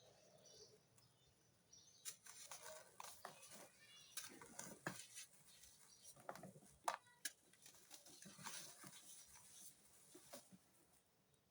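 Sand being crushed and crumbling: a quiet run of soft crunches and crackles that begins about two seconds in and dies away near the end.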